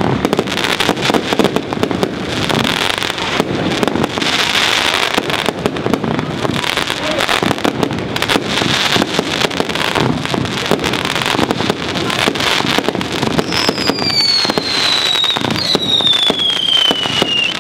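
Fireworks display finale: a dense, continuous barrage of rapid bangs from aerial effects. Near the end two whistles sound one after the other, each falling in pitch.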